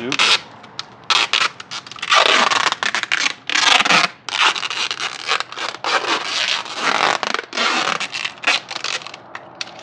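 Irregular scratchy, rasping strokes, each a fraction of a second long, with a few sharp clicks, from hands working at a motorcycle's handlebar and console area.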